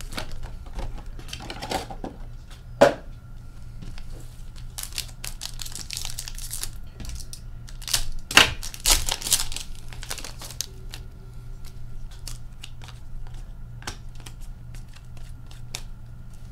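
Foil wrappers of Upper Deck Series 1 hockey card packs crinkling and tearing as they are ripped open by hand, with sharp clicks and rustles of cards being handled. There is a sharp snap about three seconds in, and the densest, loudest crinkling comes about eight to ten seconds in.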